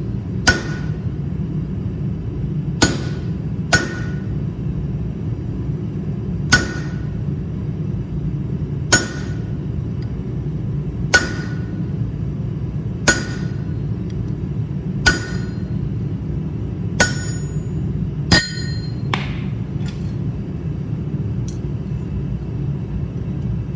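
Hammer blows on a hand-held punch set against a red-hot mild steel bar on the anvil, hot punching the leaf hook: about eleven single strikes one to two and a half seconds apart, each with a short metallic ring, stopping a few seconds before the end. A steady low hum runs underneath.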